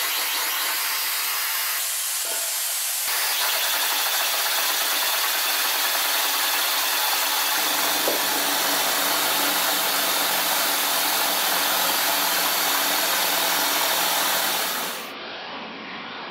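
Transparent 3D-printed nutating-disk air engine running on compressed air: a loud, steady hiss of air escaping through it. About halfway a low steady hum joins the hiss, and near the end the sound drops to a quieter hiss.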